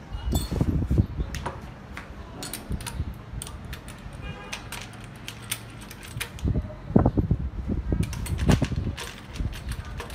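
Metal clicks, clinks and knocks of parts and tools being handled while the grass guard is fitted to a push-type brush cutter, with low thuds of handling. The clatter is busiest in the first second and again from about six and a half to nine and a half seconds in.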